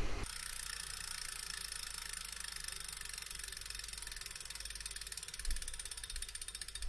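Bicycle freehub ticking: the pawls clicking in a fast, even run as the trainer's cassette freewheels, with a low hum underneath.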